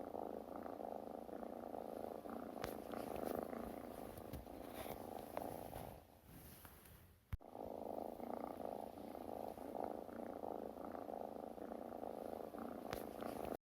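Domestic cat purring steadily, breaking off for about a second around six seconds in and resuming after a brief click, then stopping abruptly near the end.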